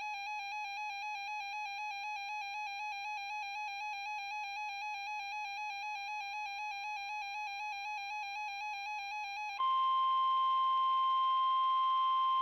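Weather radio alert tones: an electronic warbling, rapidly pulsing beep, then about ten seconds in an abrupt switch to NOAA Weather Radio's steady, louder 1050 Hz warning alarm tone over light static. The tone signals that a warning is about to be broadcast.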